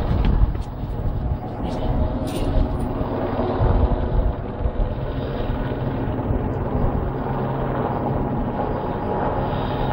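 Light single-rotor helicopter flying low overhead: a steady drone of rotor and engine.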